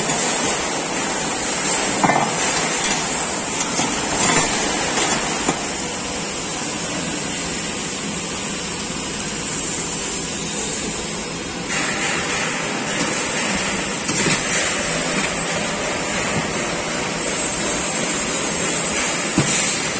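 Steady workshop background noise, a broad hiss of machinery and ventilation, with a few light knocks as bent sheet-steel parts are handled on a wooden bench.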